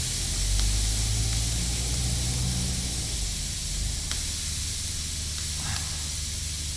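Steady hiss of air escaping from the freshly reamed puncture in the car tyre, over a low hum, with a few faint ticks of the plug tool being handled.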